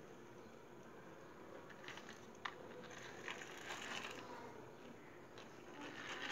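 Faint rustling and scraping from a small plastic toy car being handled and rolled across a floor, with one sharp click about two and a half seconds in.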